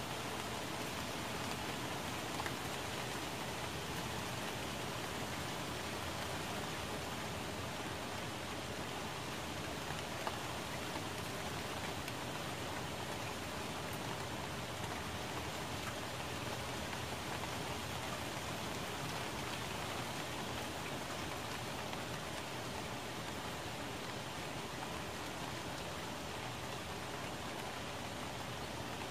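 Steady rain falling on plant leaves, with a couple of single drops standing out more sharply.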